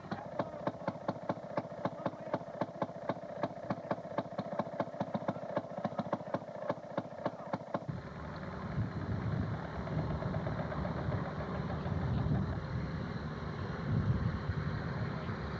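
Railroad motorcar's two-stroke engine running with an even popping exhaust beat, about five pops a second. About halfway through the pops stop and a steady low rumble takes over.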